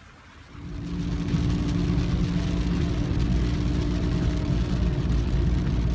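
Car running, heard from inside the cabin: a low, steady engine rumble and hum with a hiss over it, swelling up about half a second in and then holding even.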